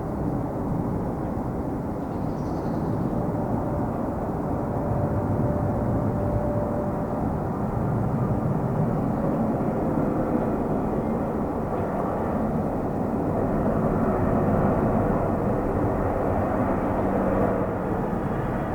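A Boeing 777-300ER's GE90 jet engines run with a steady rumble as it lands on a wet runway, growing slightly louder through the middle.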